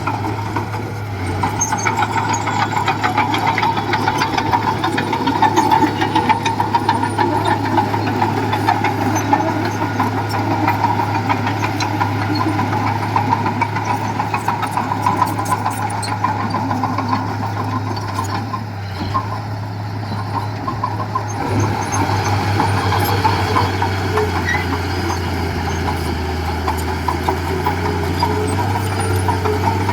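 Diesel engine of earthmoving machinery running steadily under work, with a rattly clatter over its hum. The engine note changes about two-thirds of the way through.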